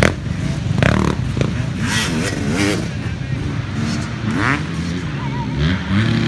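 Small youth dirt bike engines running and revving, their pitch rising and falling as the bikes ride over the jump, with voices talking.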